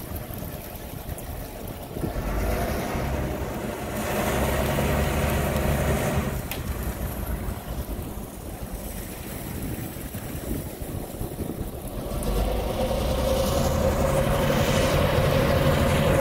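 Harbor tug's diesel engine powering up twice, each surge lasting a few seconds, with a rush of churning water; the second surge is the louder, with a steady hum over the engine's low running.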